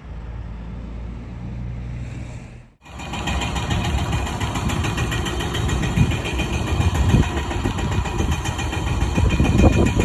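Heavy diesel truck engines: a semi pulling a lowboy trailer runs steadily for nearly three seconds, then after an abrupt break a tri-axle dump truck's engine idles and rumbles louder, with uneven surges, as it creeps out.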